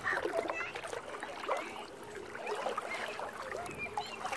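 Water trickling and dripping in small, quick plinks as a long-handled mesh dip net is moved through shallow lake water beside a kayak.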